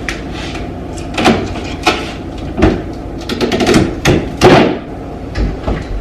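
Irregular knocks, clunks and scraping rustles as a new refrigerator is unwrapped and its doors handled, with the loudest clatter about four seconds in.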